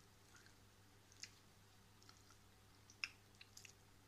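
Very quiet eating by hand: a few faint, sharp clicks and wet smacks from fingers picking food off a plate and from chewing, the loudest about three seconds in, over a faint steady low hum.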